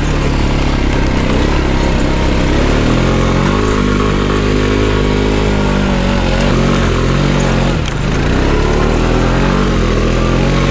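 Honda ATV engine running, its revs rising and falling slightly, with a brief drop in revs about eight seconds in.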